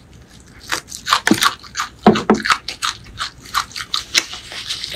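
Close-miked chewing: crisp, irregular crunches as a bite of raw green chilli is chewed, the loudest about a second and two seconds in.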